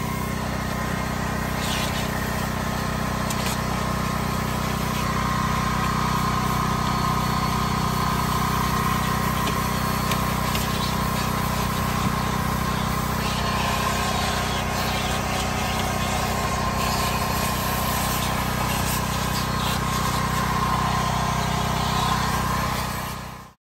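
Vacuum cleaner running steadily as its hose and narrow crevice nozzle are worked over car floor carpet. The hum fades out just before the end.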